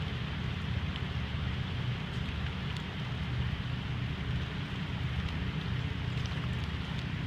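Steady rushing-water noise of the swollen, fast-running Russian River, with a low rumble underneath and a few faint ticks.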